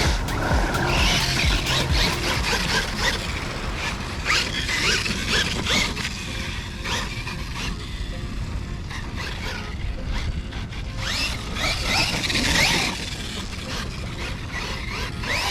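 Losi LMT RC monster truck's brushless electric motor whining up in repeated short throttle bursts as it drives through wet sand, algae and water, with a steady low rumble underneath.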